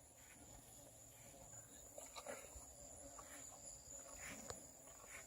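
Near silence outdoors, with a faint, steady high-pitched insect trill and a few soft ticks and rustles.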